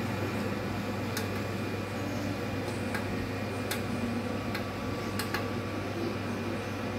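Half a dozen sharp clicks of buttons being pressed on a pure sine wave power inverter's control panel, over a steady low hum from the running solar generator cabinet.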